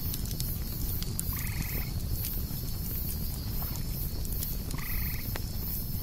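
Campfire crackling and popping, with a steady high drone of cicadas that pulses a couple of times a second. Twice a short, rasping animal call sounds, about a second and a half in and again near the five-second mark.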